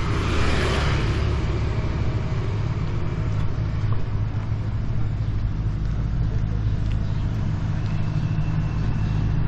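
Steady low rumble of motor-vehicle traffic, with a vehicle passing close by and swelling then fading in the first second.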